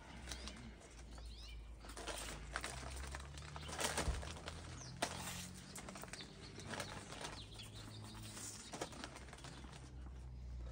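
Scattered crunching and clicking of people chewing crunchy cheese-puff balls, over quiet outdoor ambience with a low steady hum underneath and a few faint bird chirps.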